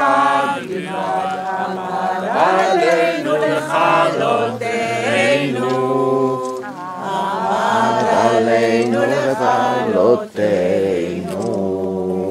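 Unaccompanied voices singing a slow chant, long held notes with wavering, ornamented turns and a steady low tone beneath.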